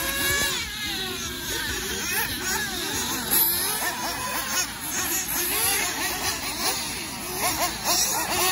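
Several gas-powered nitro RC buggy engines revving up and down as the cars race around the track, a tangle of overlapping rising and falling whines.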